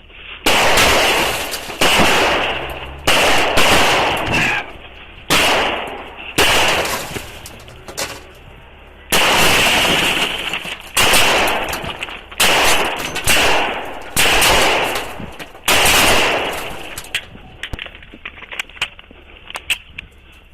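Gunfire in a shootout: more than a dozen loud shots at uneven intervals, some in quick pairs, each ringing out and fading. The shots give way to a few faint scattered clicks near the end.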